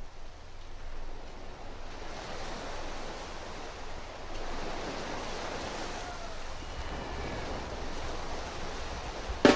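Ocean surf washing in slow swells, a few faint gliding tones rising and falling over it. The band comes in suddenly and loudly right at the end.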